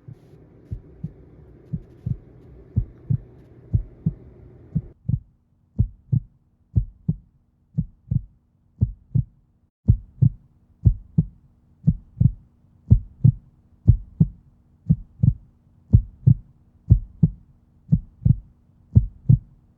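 Heartbeat sound effect: a steady run of low paired thumps, lub-dub, repeating evenly throughout, with a faint steady hum joining about five seconds in.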